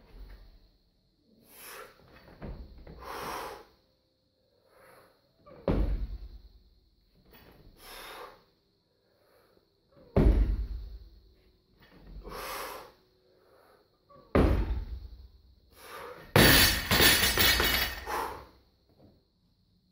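Heavy thuds about every four seconds during barbell snatch reps, with hard breathing between them. Near the end the loaded barbell is dropped and its plates clatter on the floor for about two seconds.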